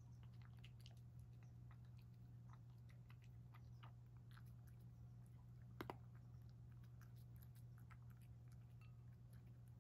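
Cat eating from a ceramic bowl: faint, irregular chewing and licking clicks, with one sharper double click about six seconds in, over a steady low hum.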